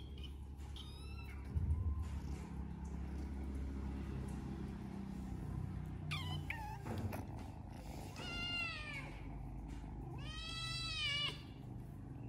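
Kittens mewing: several short high-pitched mews, each rising then falling in pitch, with the longest and loudest about ten seconds in.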